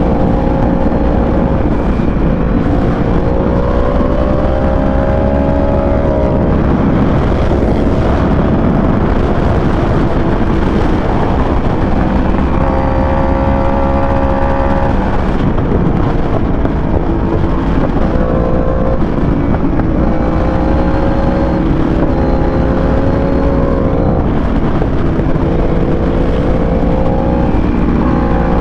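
Sportbike engine heard from on board while riding. Its pitch climbs slowly, drops and climbs again every few seconds as the bike pulls through the gears and eases off for corners, over heavy wind rush on the microphone.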